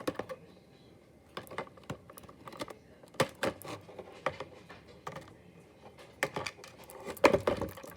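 Hands working at plastic toy packaging: irregular clicks, taps and short rustles of the plastic tray, busiest about three seconds in and again near the end.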